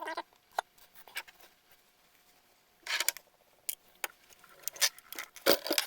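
Plastic toy doctor's tools being handled: scattered clicks and taps, a short burst of rustling about three seconds in, and a louder cluster of clicks near the end.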